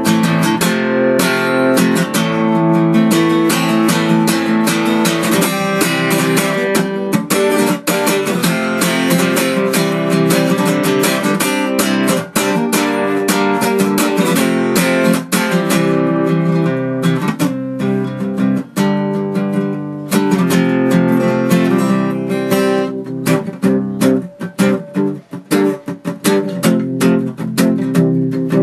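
Acoustic guitar strummed steadily in chords, an instrumental passage with no singing. Near the end the strums turn shorter and choppier.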